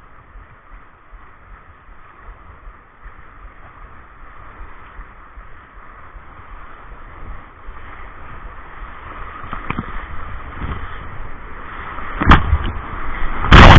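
Rushing river water, a steady hiss that grows louder, with two sharp knocks near the end.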